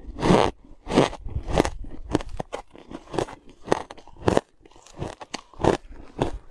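A mouthful of ice being chewed close to the microphone: crisp, irregular crunches, one or two a second.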